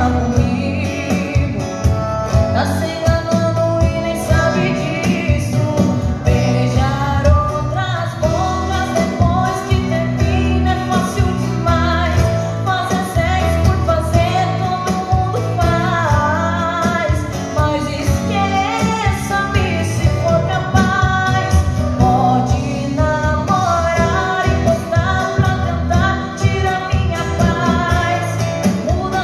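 A woman singing a sertanejo song into a microphone, accompanied by an acoustic guitar, amplified through PA speakers.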